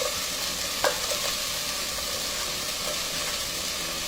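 Onions and red and green bell peppers sizzling in hot oil in a cooking pot while being stirred, a steady frying hiss with a single sharp knock about a second in.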